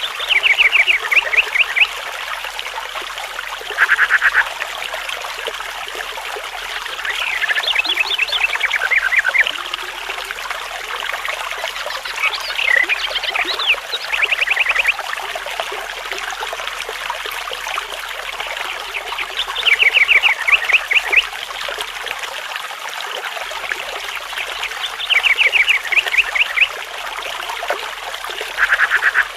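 Stream water trickling steadily, with an animal's short rattling calls, rapid pulses lasting about a second, repeating every five seconds or so.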